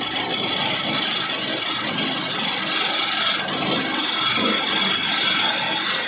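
Electric flour mill driven by an induction motor, running and grinding dried red chillies: a loud, steady grinding rasp with a constant high whine over it.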